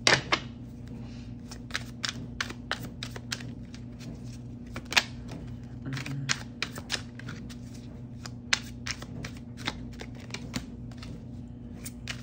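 Tarot cards being shuffled and handled: irregular sharp snaps and slaps of cards, over a steady low hum.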